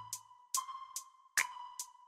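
Background electronic music in a sparse passage: a bass note fading out at the start, then light percussive ticks about twice a second over a thin held tone.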